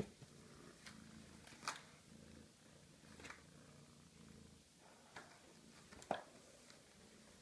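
Kitten purring softly, a low pulsing rumble, with a few short faint clicks or taps, the loudest about two seconds in and near the end.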